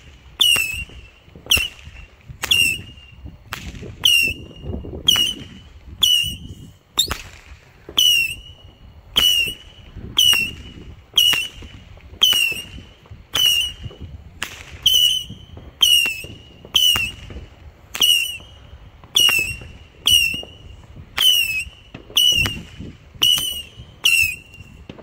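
A 100-shot Saturn missile battery firing in rapid succession, about three shots every two seconds. Each shot is a sharp crack followed by a brief whistle that dips slightly in pitch.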